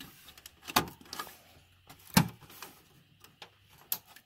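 Plastic clicks and knocks of a Corsair Vengeance LPX DDR4 RAM stick being pressed into a motherboard DIMM slot: a sharp snap just after two seconds in, another a little before one second in, and lighter taps between.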